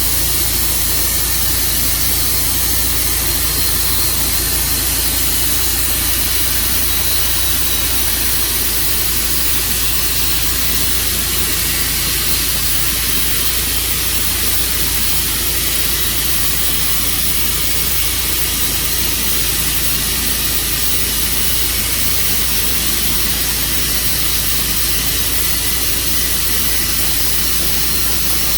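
Engine running steadily under a loud hiss, with no change in speed.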